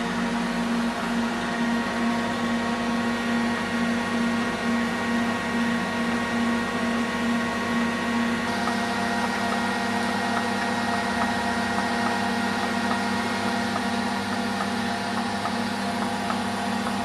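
Orbital TIG welding equipment running during a weld: a steady electrical hum and hiss from the power source and weld head. The tone shifts about eight seconds in, when the low rumble drops away.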